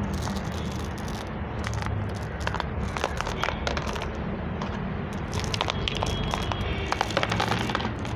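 Small decorative pebbles clicking and clattering as a hand drops them onto sand and other pebbles in a plastic tub, over a steady low rumble.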